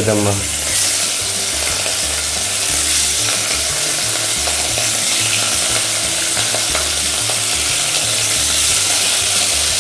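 Beef cubes sizzling steadily in hot oil in a pot as more pieces are dropped in to sear. They were salted and peppered just before going in, which helps them brown.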